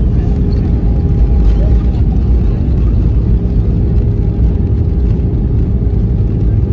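Airliner cabin noise aboard an Airbus A320 rolling out on the runway after landing: a loud, steady low rumble of wheels and engines, with a faint steady hum over it.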